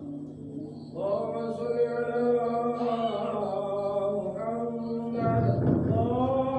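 A man's voice chanting devotional phrases in long, drawn-out melodic lines, starting about a second in.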